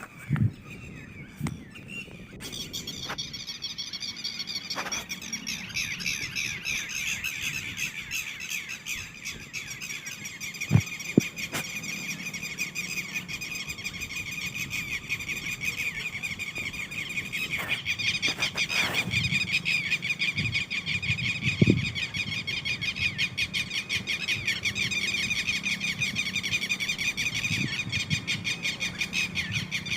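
Red-wattled lapwing calling: sharp, rapidly repeated notes that start about two and a half seconds in and go on without a break. A few dull knocks come now and then, loudest around the middle and about two-thirds of the way through.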